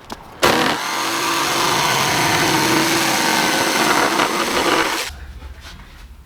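Power saw cutting through lumber: a steady run of about four and a half seconds that stops about five seconds in.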